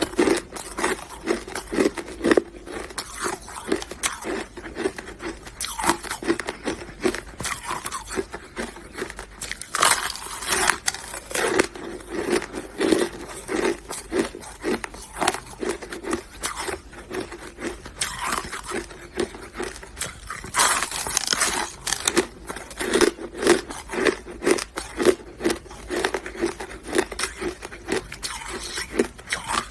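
A person chewing and crunching hard shaved ice in the mouth: a dense, continuous run of crisp crunches, with louder bites about ten seconds in and again around twenty seconds.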